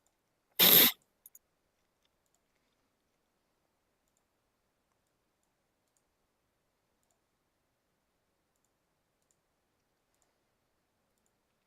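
One short, loud rush of noise just under a second in, followed by two faint ticks; otherwise near silence.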